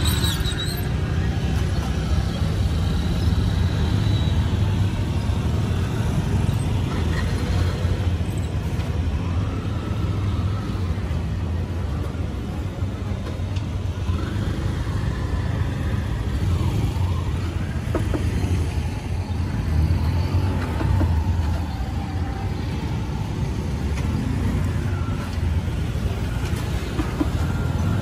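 Street ambience: a steady low traffic rumble with faint, indistinct voices.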